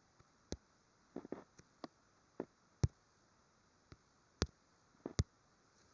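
Scattered sharp taps and clicks from working a digital drawing device, about a dozen at irregular spacing, a few in quick pairs.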